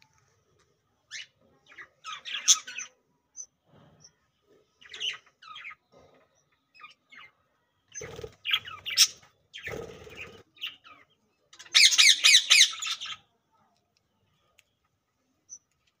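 Budgerigars chirping and squawking in short scattered bursts, with a dense run of rapid harsh chirps about three-quarters of the way through. A couple of muffled rustles come about halfway.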